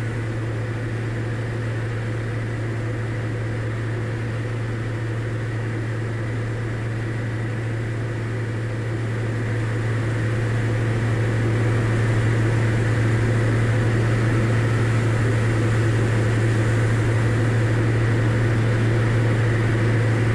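Cabin drone of a Diamond DA40 in cruise: the engine and propeller hum steadily under the noise of the airflow, growing slightly louder about halfway through.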